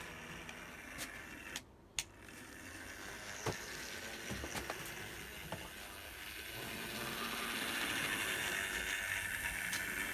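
Liliput 2095 H0e model diesel locomotive running along the track on its repaired connecting rods: a steady whir of the small motor and gear drive with scattered light clicks. It grows louder about seven seconds in as the locomotive comes close.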